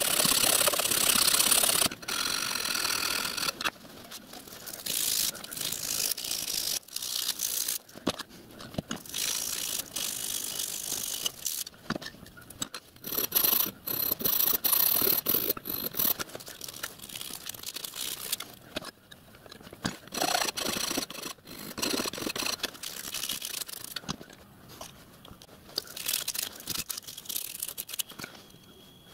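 Hand file working aluminium stock clamped in a bench vice, sped up eight times, so the file strokes run together into a fast, choppy rasping that comes in runs with brief pauses.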